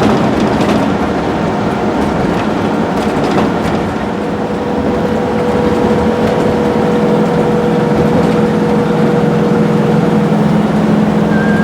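Steady engine and road noise inside a motorhome cab at highway speed, with a steady drone that comes in about four seconds in and a few light rattles early on.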